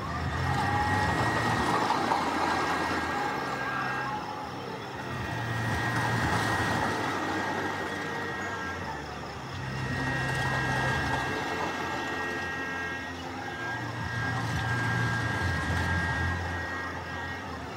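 Carnival ride machinery running: a low engine-like drone that swells and fades about every four to five seconds, with a faint steady high whine over it, as the Fire Ball loop ride cycles.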